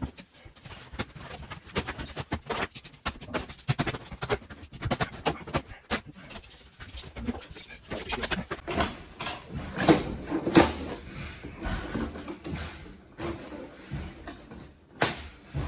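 Demolition work with pry bars: irregular knocks, scrapes and creaks as material is pried and torn off a wall, the hits coming thicker and louder in the second half.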